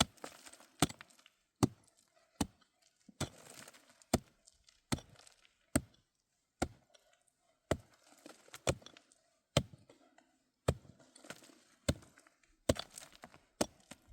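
Steady chopping with a hand tool: sharp strikes about one a second, some followed by a short crunching rustle.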